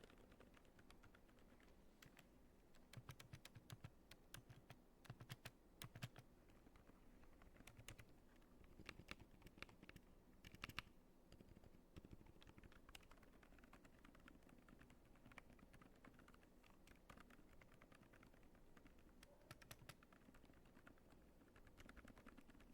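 Small buttons being pressed, in quick runs of soft clicks much like typing, thickest a few seconds in and again around the middle.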